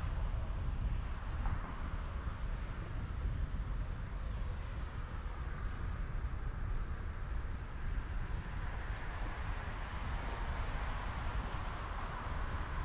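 Steady rolling noise of a road bike riding along an asphalt bike path, with a low rumble of wind on the microphone.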